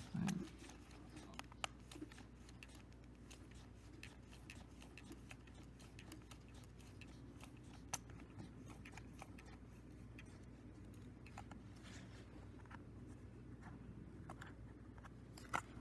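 Quiet room tone with faint, scattered clicks and ticks of fingers handling a plastic cassette shell, and one sharper click about eight seconds in.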